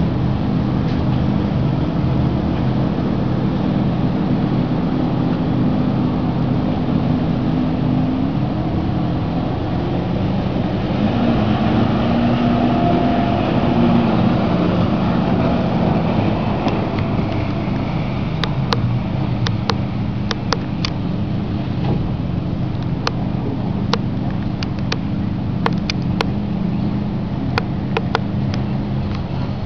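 Boat engines running steadily on the water, with a shifting hum that swells in the middle. Scattered sharp clicks or pops come in over the second half.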